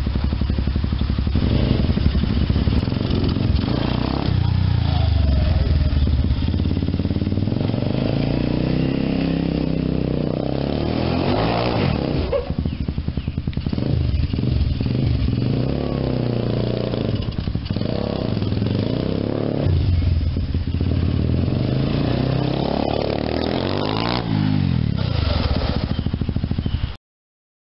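Small engine of a motorised beer-crate trike running and being revved up and down as it is ridden about. The sound cuts off abruptly near the end.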